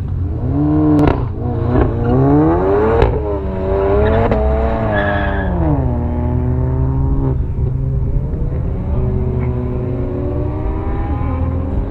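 Car engine revving repeatedly: the pitch climbs and drops several times in the first six seconds, with a few sharp cracks, then settles into a steadier drone that creeps up slightly near the end.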